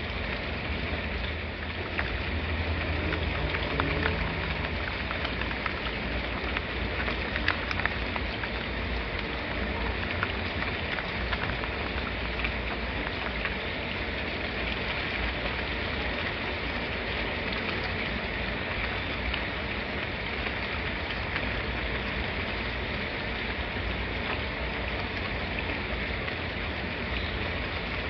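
Steady rain falling, an even hiss with a low rumble underneath and scattered sharper drop ticks, most of them in the first several seconds.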